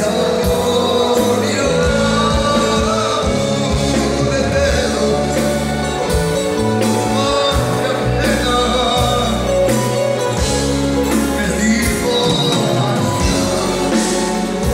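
Live band music with singing over a steady drum beat and bass.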